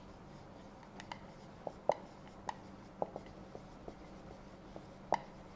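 Whiteboard marker writing on a whiteboard: a string of faint, short scratches and taps at uneven intervals as a line of words is written.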